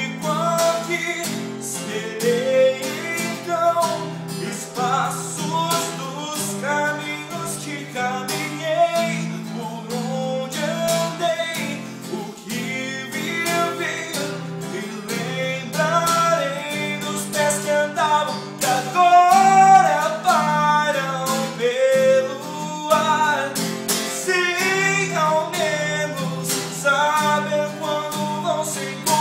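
A man singing to a strummed Giannini cutaway acoustic guitar.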